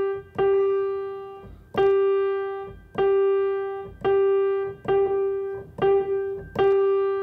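Yamaha C5 grand piano with one note struck over and over, about seven times at uneven intervals, each strike ringing and then damped, some cut off short. The note's hammer bobbles and double-strikes, which the technician traces to repetition springs that are too slow (weak).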